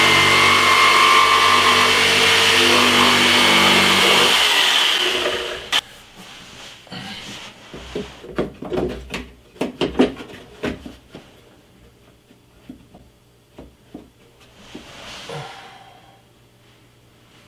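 Black & Decker jigsaw cutting an opening in the fascia, running steadily with a motor whine, then winding down and stopping about five seconds in. After it come a run of light clicks and knocks as the metal-and-plastic faceplate is handled and fitted to the opening.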